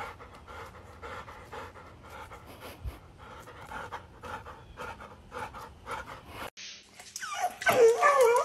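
A dog panting in quick, even breaths. About two-thirds of the way through, a different dog starts whining and yelping excitedly, in loud, wavering, sliding cries.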